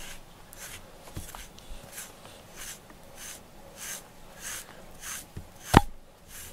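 FURminator deshedding brush raking through a cat's fur in repeated rasping strokes, a little under two a second. Near the end there is one sharp click, louder than the strokes.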